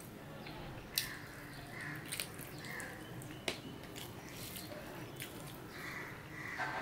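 Close-up eating sounds: chewing and wet mouth noises with a few sharp smacking clicks, while fingers mix rice and curry on a steel plate.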